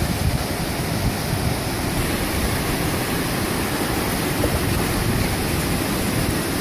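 Gulf of Mexico surf breaking and washing in, a steady rushing noise, with wind rumbling on the microphone.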